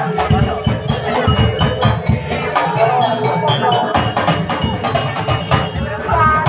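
Marching drum band playing: many quick drum strikes with short, ringing bell-like melody notes over them.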